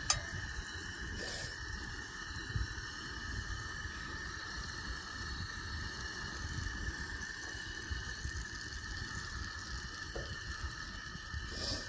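Butter sizzling steadily in a hot cast-iron skillet, with a few light clicks of a spoon against the pan, over a low rumble of wind.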